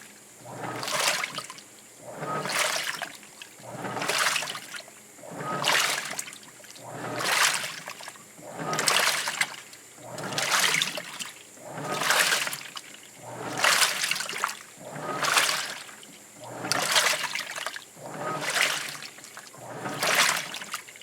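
Washing machine washing clothes in water: an even, repeating slosh roughly every second and a half as the load is churned back and forth.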